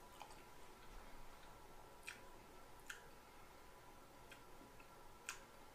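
Near silence with the faint wet clicks of a man chewing a mouthful of mac and cheese and fried chicken; three sharper clicks about two, three and five seconds in, over a faint steady tone.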